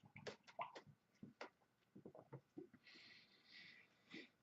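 Near silence: room tone with faint, scattered small clicks and a brief faint hiss about three seconds in.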